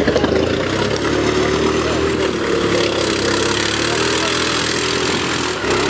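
ATV engine running steadily, its note wavering a little in pitch.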